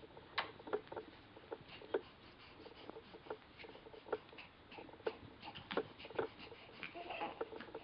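Newborn baby moving on a blanket: faint, irregular small clicks and soft rustling, with a short baby vocal sound about seven seconds in.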